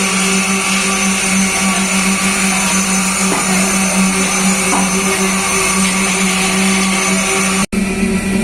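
Concrete-pouring machinery running with a loud, steady hum, cutting out for an instant near the end before carrying on.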